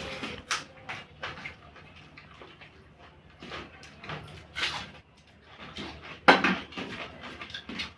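Eating by hand from stainless steel plates: fingers mixing rice against the steel and chewing, with scattered small clinks. About six seconds in, a louder clink as a steel gravy bowl knocks against a plate while gravy is poured.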